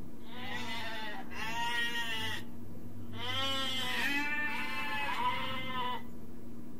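Goat bleating: about four wavering calls in two pairs, the last one longest.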